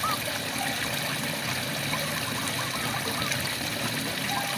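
Steady rain falling, with frogs calling over it in short, wavering trills. A run of calls comes about two seconds in and another near the end.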